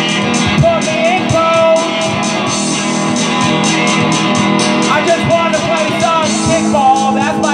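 A song with guitar and a singing voice over a steady beat.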